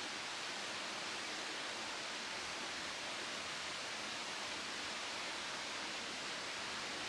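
Waterfall's falling water rushing with a steady, even hiss.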